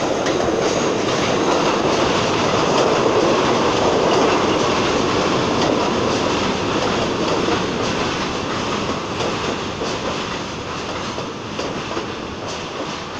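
R42 New York City subway train pulling into the station, its wheels rumbling and clattering over the rails with some squeal. The noise swells at once, is loudest about four seconds in, then grows steadily quieter as the cars roll past.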